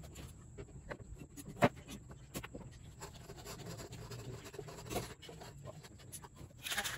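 Handling noise from plastic party cups and other items being picked up and set down on a wooden slab tabletop: scattered light knocks and clicks, one sharp knock about a second and a half in, and a short rustling stretch near the end.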